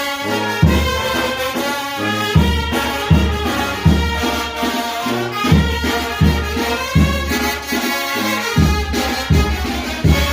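Mexican banda brass band playing: trumpets and trombones carry the melody over deep bass notes repeating about once every three-quarters of a second.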